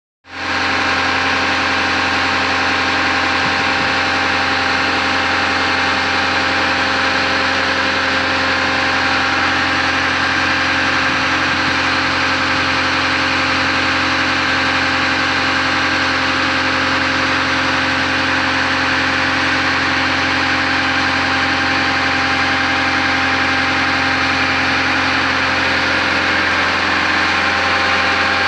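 Water-well drill rig's engine and hydraulic power unit running steadily at a constant speed, an even mechanical drone with a fixed hum.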